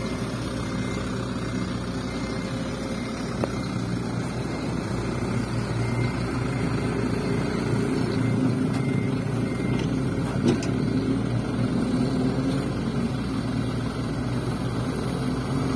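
Diesel engine of a fully loaded Mitsubishi dump truck running steadily at low revs as the truck moves slowly over soft, muddy ground; it grows a little louder midway.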